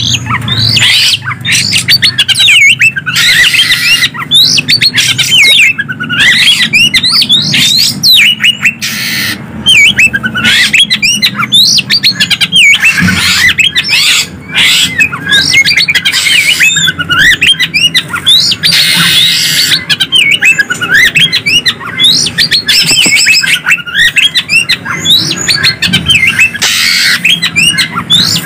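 Greater green leafbird (cucak ijo) and Oriental magpie-robin (kacer) singing back and forth in a dense, unbroken stream of quick whistled phrases and chirps. This is a songbird training recording (masteran), played to stir caged songbirds into singing.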